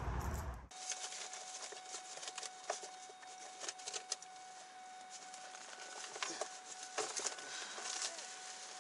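Handling noise from a search of a car's interior: scattered clicks, taps and rustles as items and fabric are moved about. A faint steady high tone runs underneath.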